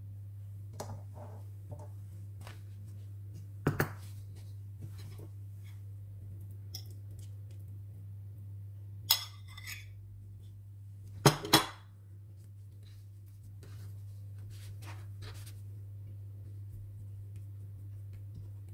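Hands folding and rolling spring roll pastry on a bamboo cutting board, with scattered small clinks and knocks of kitchenware: a quick double knock about four seconds in, a noisier clatter about nine seconds in, and the two loudest knocks just after eleven seconds. A steady low hum runs underneath.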